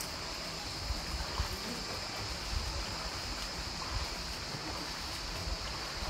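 Canyon stream water flowing steadily, with a steady high hiss and a few soft low knocks.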